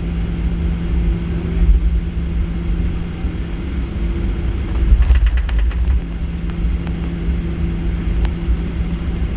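Cabin noise of a Boeing 737-800 on the ground after landing: steady hum of its CFM56 engines over a low rumble from the airframe and wheels. The hum fades for a couple of seconds partway through, and a few sharp clicks or rattles come about five seconds in.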